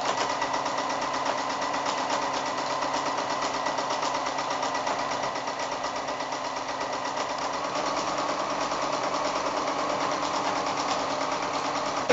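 Electric sewing machine running steadily at speed, sewing a long row of straight-stitch machine quilting. Its needle strokes make a fast, even chatter that stops suddenly at the end.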